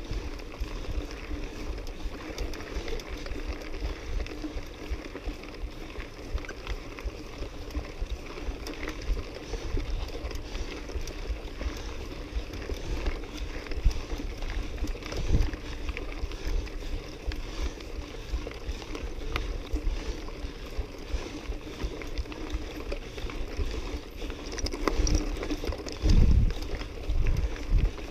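Mountain bike ridden over a loose gravel track, heard from the bike itself: tyres crunching on stones and the bike rattling over bumps, under a steady low rumble. A few louder knocks, one about halfway through and a heavier one near the end.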